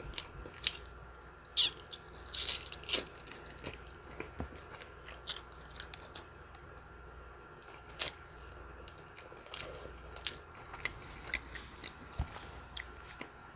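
A person chewing and biting food close to the microphone: irregular wet clicks and smacks, with a few sharper bites.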